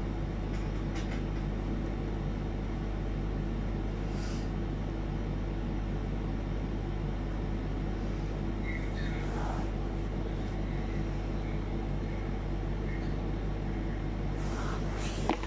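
Steady low mechanical hum with a faint held tone, unchanging throughout, and a few faint brief sounds about two-thirds of the way through.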